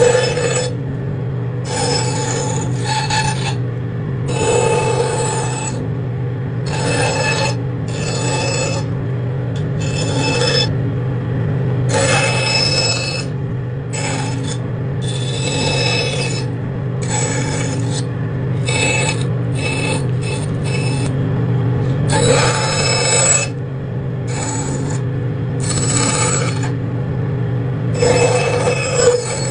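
A machine running with a steady hum, and short rasping or scraping strokes repeating irregularly every second or two.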